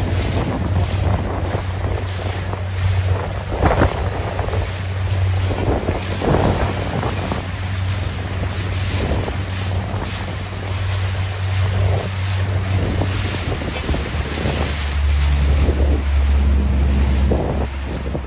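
Wind buffeting the microphone over choppy water slapping and splashing, in uneven gusts. A steady low hum runs underneath and drops lower about fourteen seconds in.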